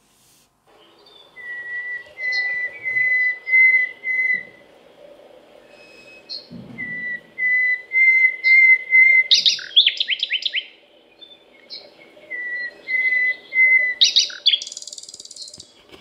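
Common nightingale singing: three phrases, each a run of repeated clear whistled notes that grow louder. The first two end in a fast run of falling notes and the last in a harsh buzzing rattle.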